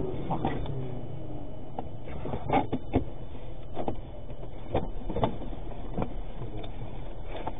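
Steady low vehicle rumble with about ten short knocks and clicks scattered through it, irregularly spaced.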